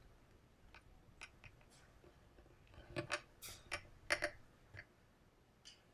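A few faint, scattered clicks and light taps, with a cluster of them about three to four and a half seconds in and one more near the end.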